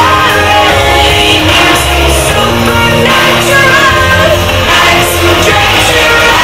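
Loud music with singing over a steady, heavy bass line, played through a stage sound system.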